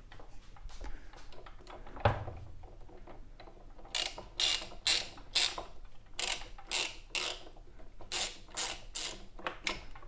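Socket ratchet clicking while backing out the spark plug of a Stihl BG 86 leaf blower: a single knock about two seconds in, then three runs of sharp clicks at about three a second.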